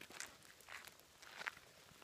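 Faint footsteps of sandals on a wet tarmac road, three steps at a walking pace.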